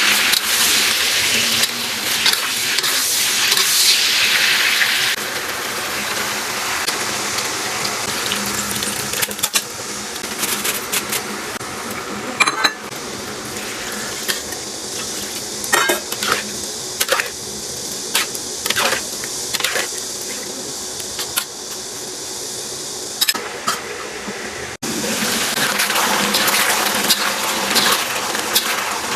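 Kitchen work: a steady hiss in stretches, with scattered clinks and knocks of pots, dishes and utensils.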